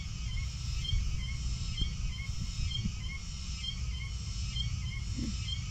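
Outdoor field ambience: a steady low rumble with a small animal's short high chirp repeating about twice a second. A brief low call sounds about five seconds in.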